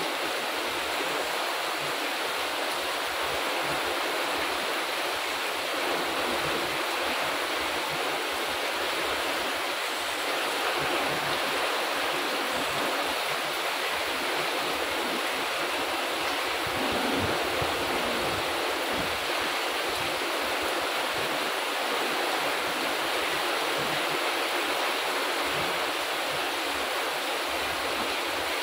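Heavy rain pouring steadily onto leafy garden plants and a wet paved path, an even hiss at constant loudness.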